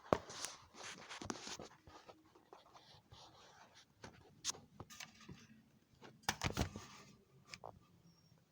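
A cardboard box set down with a knock, then handled: scattered scrapes, rustles and light taps, with a few louder knocks about six and a half seconds in.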